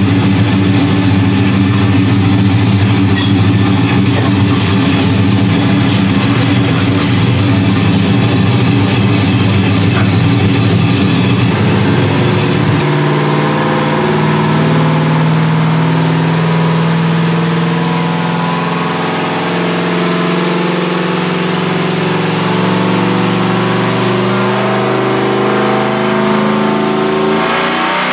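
Chevrolet Silverado's ProCharger-supercharged 5.3 L V8 running on a chassis dyno at a steady pace. About thirteen seconds in, the engine note changes abruptly to a smoother, higher tone that holds fairly steady.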